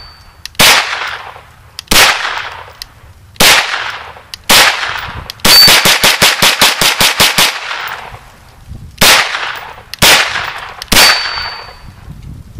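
Kel-Tec Sub2000 Gen 2 9mm carbine firing semi-automatic: single shots about a second apart, then a fast string of about a dozen shots over two seconds midway, then three more spaced shots.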